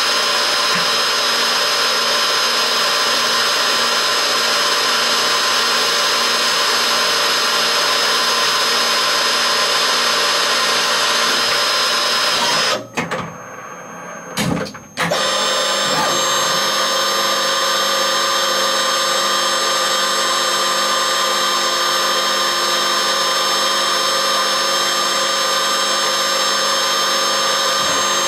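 Emco E25 TCM CNC turning centre running its driven tool to drill small holes in a ring-shaped part: a steady machine whine over a spread of noise. About halfway through it falls nearly silent for about two seconds as the tool is withdrawn, with a short thump in the gap. It then starts again with a slightly different whine.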